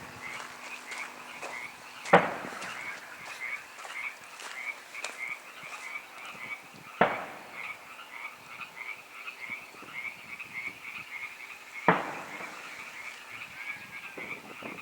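Three loud booms about five seconds apart, the unexplained booming heard over the vineyards, which the recorder wonders may be a hail cannon. Under them, frogs croak steadily in a chorus of about three calls a second.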